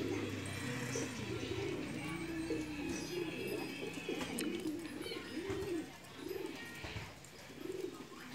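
Domestic pigeons cooing, several birds overlapping in a steady chorus of rising-and-falling coos. Near the end the coos come more separately, about one a second.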